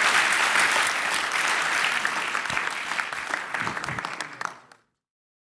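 Audience applauding, the clapping thinning out over the last couple of seconds and then cutting off near the end.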